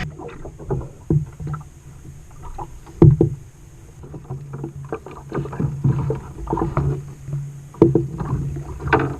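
Water sloshing and splashing against a small fishing boat's hull, with irregular knocks, the loudest about three seconds in, over a steady low hum.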